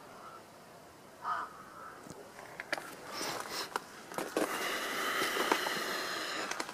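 A crow caws once about a second in. Then come crunching footsteps over stone rubble and dry leaves, under a louder steady rushing noise for the last two seconds.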